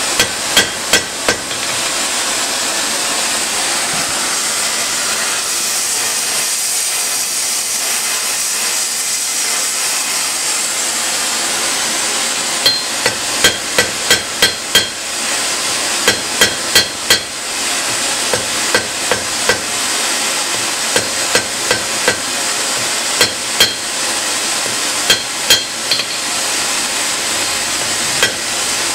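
Hand hammer striking red-hot steel on an anvil while forging a drill bit: short runs of quick, ringing blows. There are a few blows at the start, a pause of about ten seconds, then runs every second or two. A steady hiss sits underneath.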